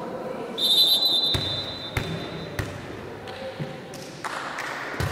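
A referee's whistle sounds one long blast starting about half a second in, and a volleyball thuds several times.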